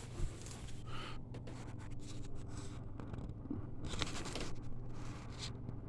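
Low steady hum with faint, irregular scraping and rustling handling noises.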